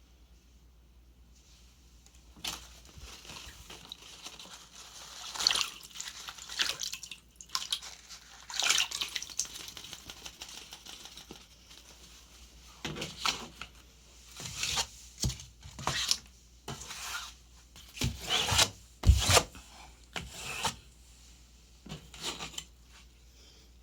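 Hands smoothing and pressing wet satin ribbon streamers flat against a board: irregular rubbing and rustling strokes, with a couple of dull knocks about three-quarters of the way through.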